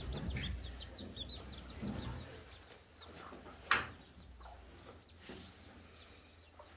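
Chickens peeping and clucking: strings of short, high peeps that each drop slightly in pitch, with one sharp click a little past halfway.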